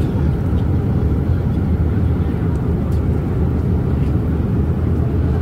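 Steady low rumble of an airliner cabin in flight: engine and airflow noise.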